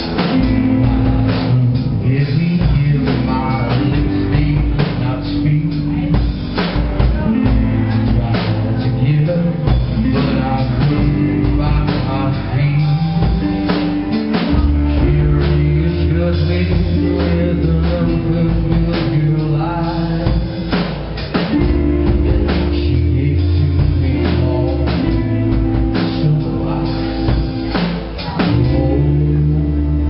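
Live rock band playing: electric guitars, bass guitar and drum kit, with a man singing into a microphone.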